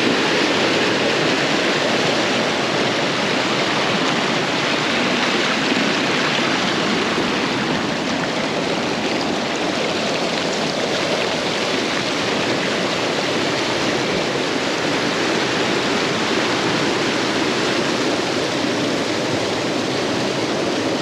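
Creek water spilling over limestone ledges of a low waterfall into a pool, a steady rushing splash. The creek is running low, so the falls have little flow.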